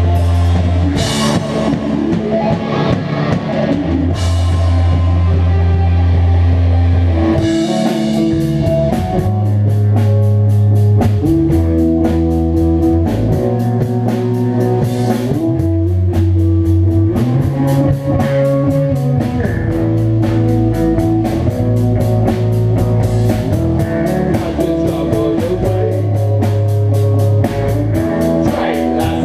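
Rock trio playing an instrumental passage on electric bass, electric guitar and drum kit, the bass strong and close with long held low notes. About seven seconds in, the drums pick up a fast, driving beat.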